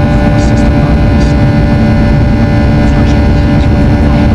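Boeing 737-800 cabin noise: the CFM56-7B jet engines and airframe give a loud, steady drone with several constant humming tones over a low rumble.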